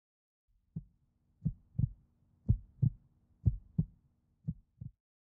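Heartbeat sound effect of an audio logo: low lub-dub double thumps about once a second, five beats in all over a faint steady low hum, stopping near the end.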